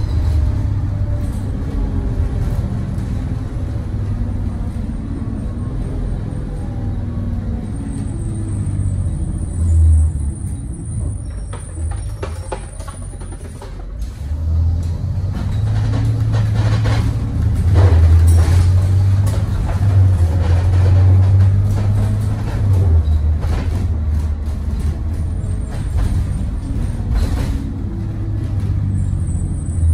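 2017 Thomas Saf-T-Liner C2 school bus heard from a back seat while driving. The engine and drivetrain drone under way, ease off in the middle, then build again as the bus pulls, with the body knocking and rattling and a thump about ten seconds in.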